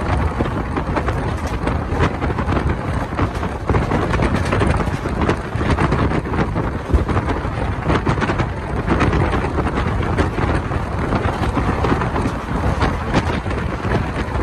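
Wind buffeting the microphone over the steady rumble and clatter of a moving passenger train, heard from a coach window, with irregular short knocks from the running gear.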